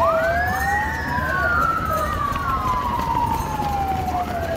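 Siren wailing. Its pitch rises quickly, then falls slowly over about three seconds, with a second sweep crossing it, and it starts to rise again near the end.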